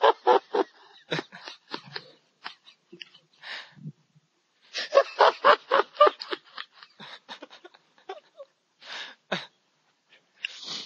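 Men laughing hard over a video call: runs of rapid ha-ha pulses, about five a second, twice, broken by breathy wheezing gasps for air.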